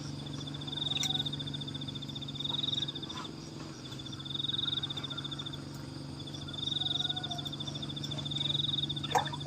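Repeated high-pitched pulsed trills from a calling animal, each about a second long, swelling and fading, over a steady low hum. A sharp click sounds near the end.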